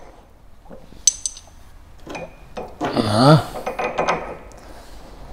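Small steel mounting plates and a bolt clinking and clicking against a tow-hitch ball head as they are fitted by hand, one click ringing sharply about a second in. A short voice sound, falling in pitch, comes about three seconds in.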